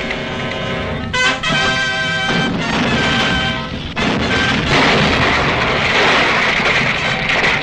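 Orchestral cartoon score with loud held brass chords, mixed with low rumbling, boom-like sound effects.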